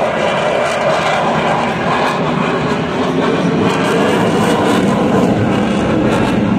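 Jet engine noise of a fighter jet flying overhead, loud and continuous, its main body of sound sinking lower in pitch over the seconds as the aircraft moves away across the sky.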